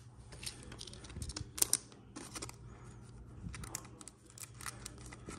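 Football trading cards being handled and flipped through: an irregular run of short clicks and scrapes of card stock sliding over card stock, with one sharper snap about one and a half seconds in.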